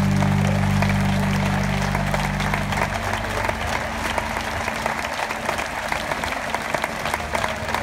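A large concert audience applauds over the band's last held chord. The chord stops about three seconds in and the clapping carries on.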